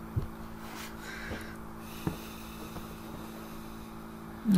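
Steady low electrical hum in the room background, with a few single sharp clicks from working the computer's keyboard and mouse.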